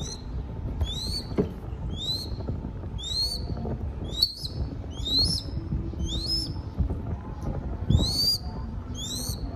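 Crested goshawk chick giving high, thin food-begging calls over and over, each call rising in pitch, about one to two calls a second.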